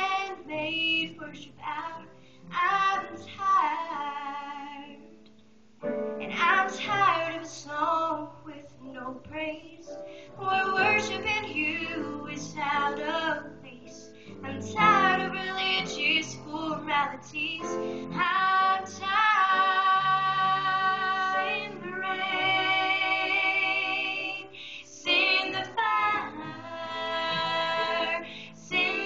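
A female voice singing a slow song over instrumental accompaniment, phrase after phrase with short pauses, over held low notes.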